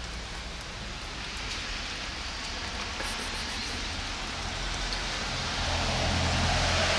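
Steady rain falling on wet pavement and plants, an even hiss that grows louder in the second half. A low hum runs underneath from about halfway through.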